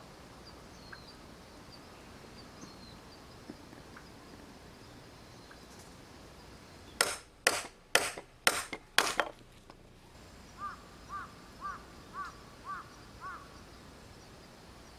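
Five loud, sharp knocks about two a second, followed by six short bird calls at the same pace, over faint high chirping and steady outdoor background noise.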